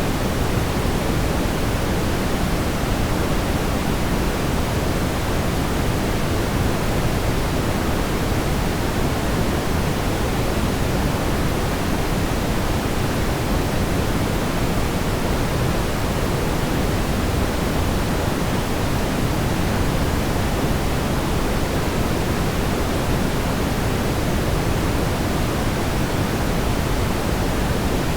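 Steady, smoothed brown noise: an even, deep hiss, strongest in the low range and fading toward the highs, with no changes.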